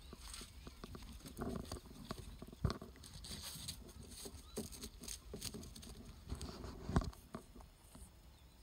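Angora rabbit gnawing and chewing a compressed alfalfa cube: faint, irregular small crunches and clicks, with a sharper crack twice, about three and seven seconds in.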